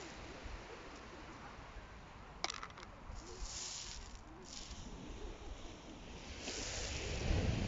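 Beach pebbles clicking and rattling as a hand sifts through shingle, with a quick cluster of sharp clicks about two and a half seconds in. Soft hissing comes and goes, and a low rumble grows near the end.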